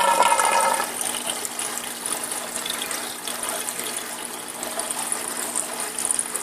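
Saltwater aquarium's PVC overflow drain running loudly with a horrible whistling gurgle. About a second in it drops to a quieter, steady rush of draining water, the noise tamed by a small PVC piece with air holes.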